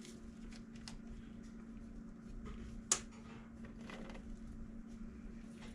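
Faint rustling and light clicks of small objects being handled, with one sharper click about three seconds in, over a steady low hum.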